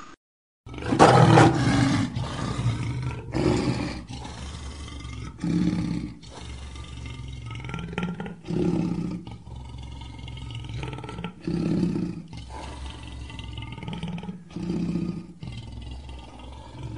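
Lion giving a series of low roars, one about every three seconds, with a rumbling growl running between them; the first, about a second in, is the loudest.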